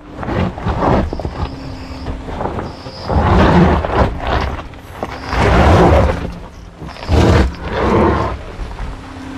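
GMC Hummer EV's tyres grinding and crunching over loose dirt and gravel as the truck crawls off-road, in four rumbling surges, with a faint steady tone in the lulls.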